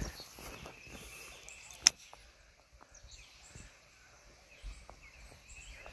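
A 4-iron striking a golf ball: one sharp click a little under two seconds in.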